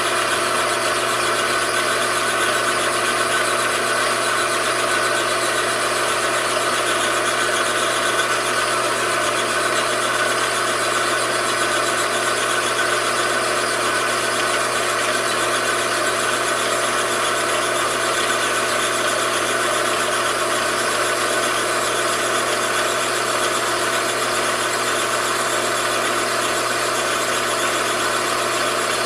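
Metalworking machine tool running steadily: an even motor hum with a constant whine, holding at the same level throughout.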